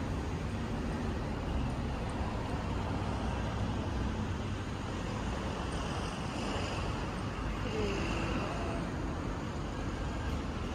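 Steady road traffic noise, an even low hum with no single event standing out.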